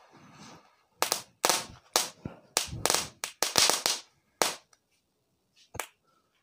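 Rooster-shaped novelty firework (petasan ayam) spitting sparks and firing a quick series of about ten sharp cracks over some three seconds, then one last crack near the end.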